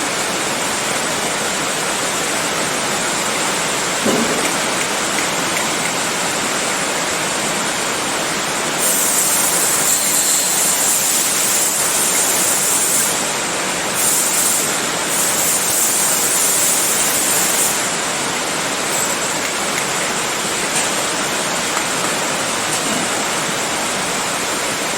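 Steady rushing noise, with two stretches of louder high hiss in the middle and a single thump about four seconds in.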